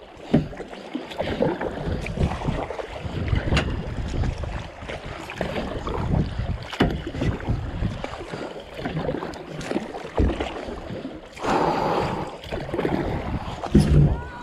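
Kayak paddle strokes splashing through pond water in quick, irregular strokes, with wind buffeting the microphone.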